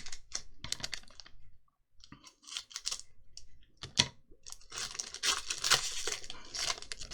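Foil Magic: The Gathering booster pack and its cards being handled: scattered clicks and rustles, one sharp snap about four seconds in, then a longer stretch of crinkling and tearing of the wrapper near the end.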